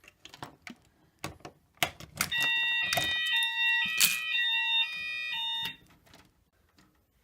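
A few clicks and knocks, then the fire alarm system's sounders go off together about two seconds in: several alternating two-tone alarm sounds at once, loud, cutting off suddenly after about three and a half seconds. This is the system being set off for a test from its manual call point.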